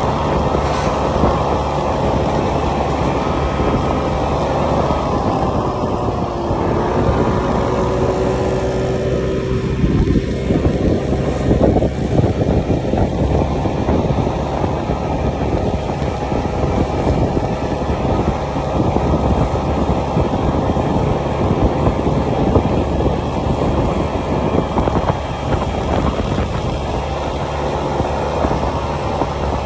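Honda Click scooter being ridden through city traffic: its small engine running steadily under continuous road and traffic noise.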